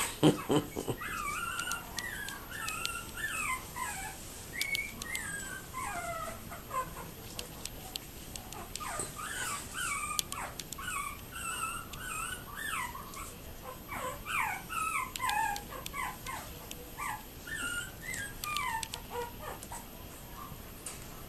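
Yorkiepoo puppies whimpering and squeaking, short high cries that bend up and down, several a second, overlapping from more than one pup. A few knocks just at the start.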